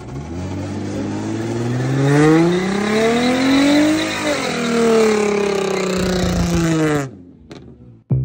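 A car engine revving up steadily for about four seconds, then winding down over the next three, over a hiss of tyre and road noise; the sound cuts off abruptly about seven seconds in. Music starts right at the end.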